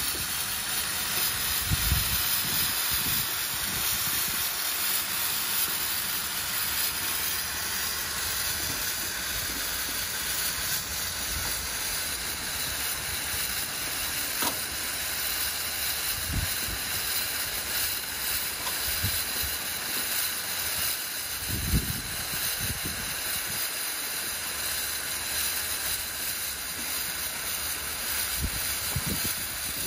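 Pressurised refrigerant gas hissing steadily out of an opened air-conditioner line as the system is vented before the compressor is removed. A few dull knocks are heard.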